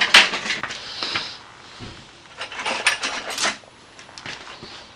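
Metal tools and parts clinking and clattering, in an irregular burst at the start and another around the middle.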